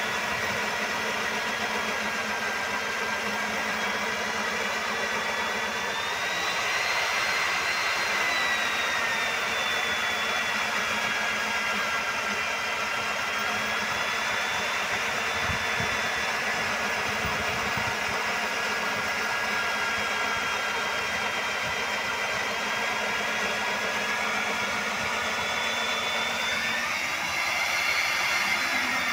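Rig-mounted electric diamond core drill running steadily while cutting a core in concrete. Its motor whine rises and falls in pitch twice, about a quarter of the way in and again near the end.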